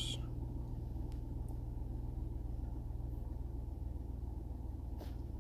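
2005 Chevy Silverado pickup's engine idling, a steady low rumble.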